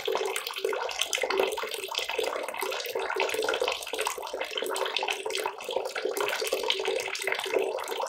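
Water pouring in a steady stream from a pipe outlet into a plastic bucket that is more than half full, splashing continuously.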